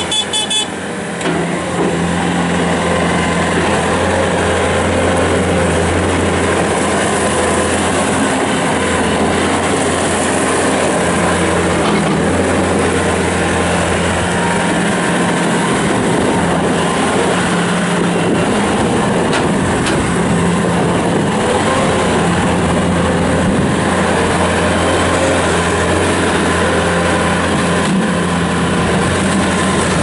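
Bobcat S550 skid steer loader's 66-horsepower four-cylinder turbo diesel running steadily as the loader is driven around.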